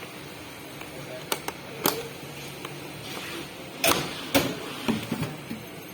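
Metal hand tools (wrenches and sockets) being handled, a series of sharp clicks and clinks, the loudest two close together past the middle.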